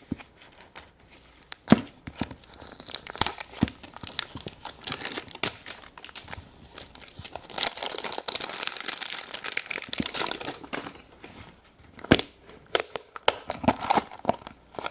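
Wrapping being crinkled and torn by hand, a dense crackling with sharp snaps, as a large Easter egg is unwrapped. It is busiest in the middle and thins to a few crackles near the end.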